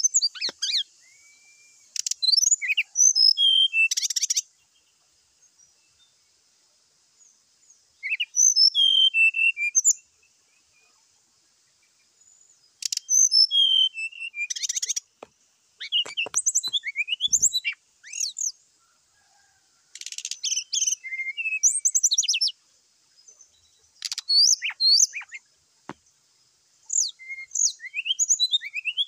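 Brown-chested jungle flycatcher giving its aggressive fighting song: bursts of quick, high, varied twittering notes, each lasting about two seconds, repeated after short pauses.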